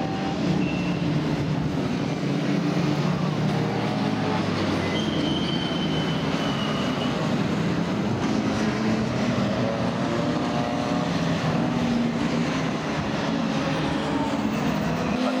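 A pack of historic 1960s saloon race cars, among them a Ford Falcon and Minis, running through a corner: several engines at once, their notes overlapping and rising and falling with speed.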